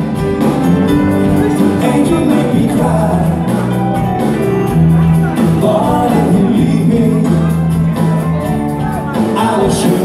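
Live amplified band playing: electric guitars, bass guitar, drums and keyboard with a steady beat, and a man singing lead into a microphone.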